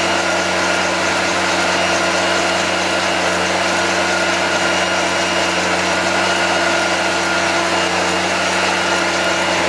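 LP-gas (propane) engine of an Advance Tiger Cat ride-on floor sweeper running steadily at constant speed, a steady engine hum with a faint high whine over it.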